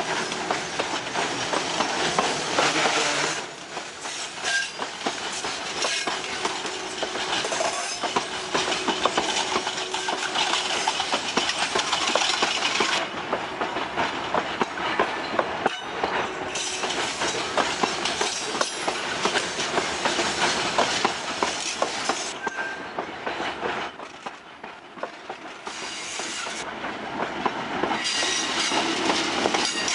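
Heavy freight wagons loaded with pig iron and iron ore rolling past close by, their steel wheels clacking rapidly over the rail joints, with a few brief wheel squeals. Near the end the train's GE U20C diesel locomotives come alongside and the sound grows louder.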